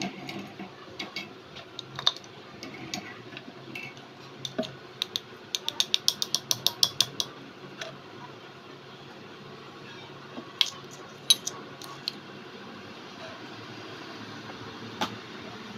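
Light clicks and taps of a small metal spoon against a miniature steel pot, bowl and boiled quail eggs. About five seconds in there is a quick, even run of clicks lasting about two seconds, with a few single clicks later.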